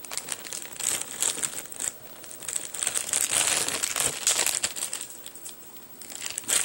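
Plastic packaging of a laptop power adapter crinkling and rustling as it is handled, in irregular crackles that are loudest in the middle.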